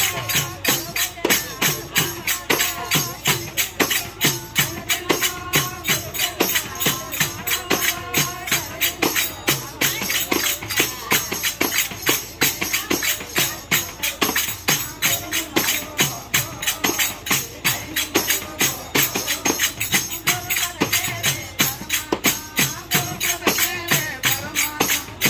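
A group singing to a fast, steady rhythm of sharp percussive strokes, about four a second, from hand claps and jingling percussion.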